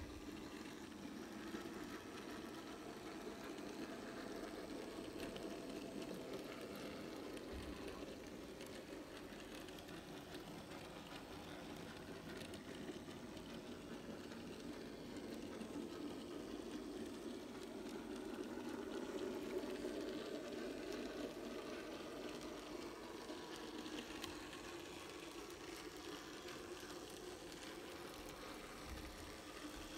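Steady whirr of a 009-gauge model diesel locomotive's small electric motor and wheels running along the track as it pulls a short train of wagons, swelling slightly about two-thirds of the way through.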